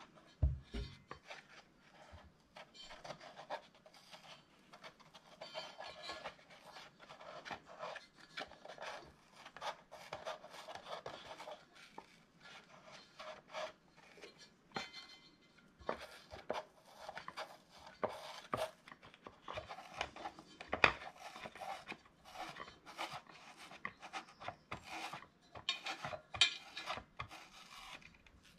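Old foam surround and glue residue being scraped and picked off the edge of a vintage Cerwin-Vega woofer's paper cone and metal frame: a long run of short, irregular scratching and rubbing strokes, with one sharper click past the middle.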